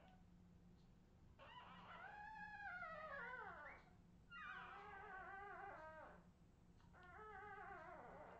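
Australian terrier puppies crying: three faint, drawn-out, high-pitched cries, each wavering and sliding down in pitch at the end.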